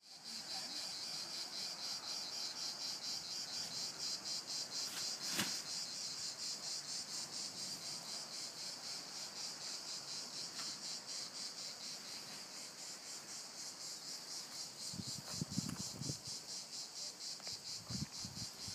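Crickets chirping in a steady, high, pulsing chorus. A sharp click about five seconds in, and a few low bumps near the end.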